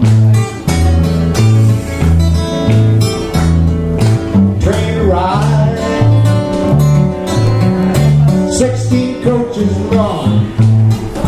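Steel-string acoustic guitar picked with a steady, driving alternating bass line under plucked chords and licks, played solo at full volume.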